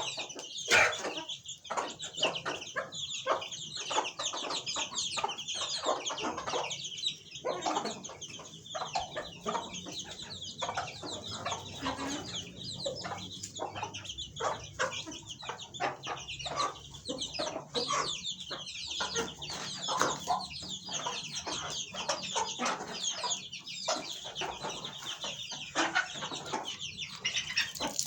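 A flock of chickens clucking and calling, with many overlapping high calls throughout.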